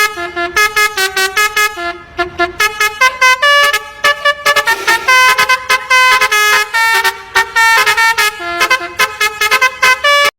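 Telolet bus horn: a multi-trumpet air horn on a tour bus playing a fast melodic jingle of short, quickly changing notes, with a few longer held notes midway.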